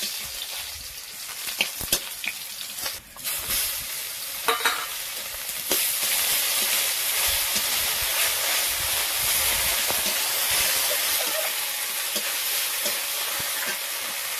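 Food sizzling in hot oil in an iron wok (kadai), with a few scrapes and knocks of a metal spatula against the pan in the first few seconds. About six seconds in the sizzle suddenly grows louder and then holds steady.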